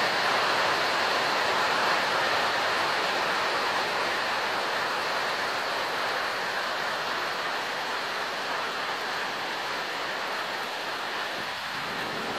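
Heavy rain falling steadily, an even hiss that eases a little toward the end.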